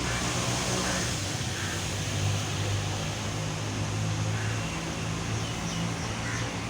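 Steady outdoor background noise: a low hum under an even hiss, with a few faint short chirps here and there.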